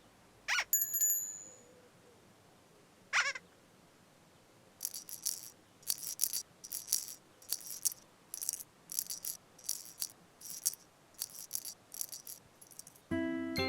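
Cartoon sound effects. About half a second in there is a quick swoop with bright chime tones ringing for about a second, and a second wavering swoop comes about three seconds in. After that comes a run of short, high shaker-like rattles, about two a second, and soft music with plucked and mallet notes starts near the end.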